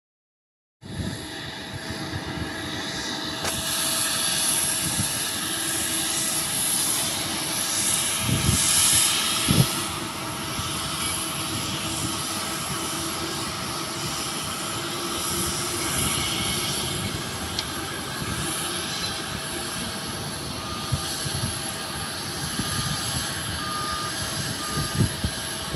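Jet airliner engines running, a steady rushing noise with a constant high whine, starting about a second in. A few low thumps come around nine seconds in and near the end.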